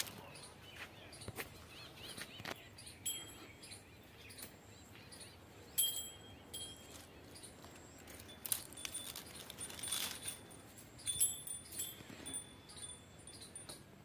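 Leaves rustling and brushing close by as plants are pushed aside and handled, in scattered bursts. Short, high bird chirps sound now and then, several of them near the end.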